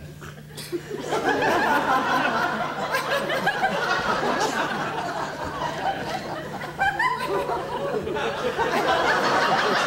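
Theatre audience laughing, rising about a second in and carrying on, over a steady low hum.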